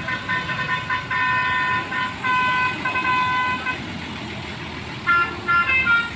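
Telolet musical horn of a Basuri bus, sounding a held chord of several tones in a few blasts with short breaks. About five seconds in it switches to a quick tune of notes stepping up and down, over the low sound of the bus engine.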